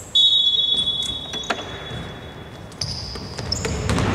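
Basketball tip-off and first play on a hardwood court. A single high steady tone sounds for about a second and a half right after the toss. Then the ball bounces on the floor and sneakers squeak as the players run.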